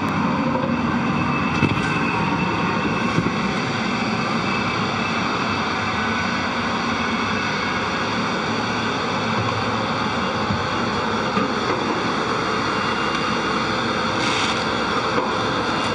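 Steady hum and hiss of the International Space Station's cabin ventilation fans and equipment, with several steady high tones over it. A couple of light knocks come in the first few seconds.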